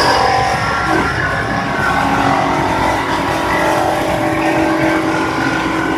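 DJ1250 CNC band sawing machine running, its band blade cutting through a stack of steel beams: a loud, steady machine noise with several held tones and no breaks.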